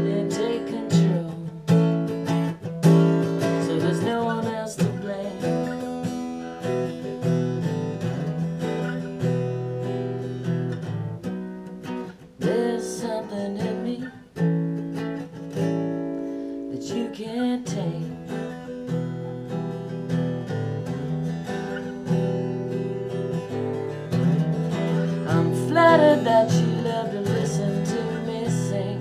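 Steel-string acoustic guitar strummed in a steady chord rhythm.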